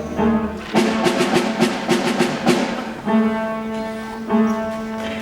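Instrumental music with percussion: a run of quick, even drum strikes over sustained notes for about two seconds, then held chords that change about three seconds in and again near the end.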